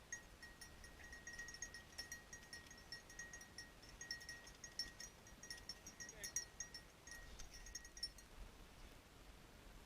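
Faint jingling of a small bell on a hunting dog's collar, shaking in quick irregular rings, stopping about eight seconds in.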